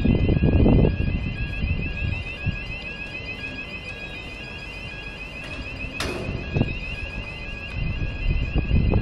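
An electronic alarm sounding steadily, a rapid warble of about five pulses a second over a lower intermittent beep. Wind rumbles on the microphone near the start and near the end, and a single sharp click comes about six seconds in.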